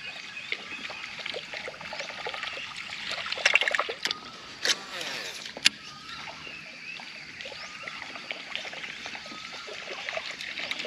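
Water trickling and splashing around a fishing kayak, with a few sharp knocks, the loudest about six seconds in.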